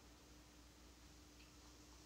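Near silence: room tone with a steady faint hum, and one faint tick a little after a second in.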